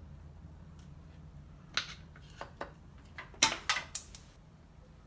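Scattered sharp clicks and clinks of a screwdriver and small metal engine parts being handled, a cluster of them between about two and four seconds in, the loudest about three and a half seconds in.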